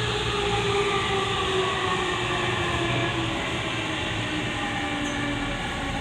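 Hitachi IGBT-inverter traction motors of a Tokyu 5000-series car heard from inside the car: an unusually loud motor whine with several tones falling steadily in pitch as the train slows, over rumbling wheel and running noise.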